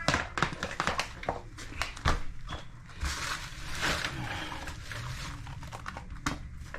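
A toilet tank refilling after a flush through its new fill valve: a steady rush of water hiss from about three seconds in, after a run of small clicks and knocks.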